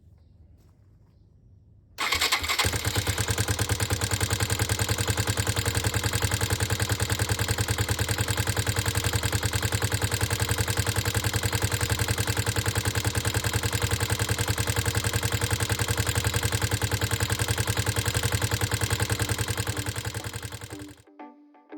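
Suzuki Djebel 200's single-cylinder four-stroke engine starting up about two seconds in and idling with an even, steady beat, then stopping near the end. This is the engine whose abnormal noise the owner sets out to cure by adjusting the valve clearances.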